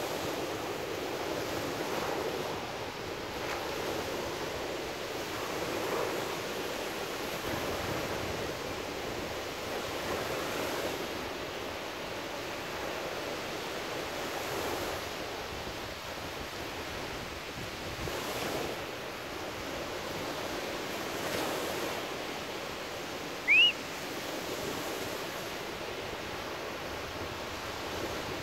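Small surf breaking and washing up on a sandy beach: a steady rush of water that swells about every four seconds. Near the end, one short, high rising chirp cuts in over it.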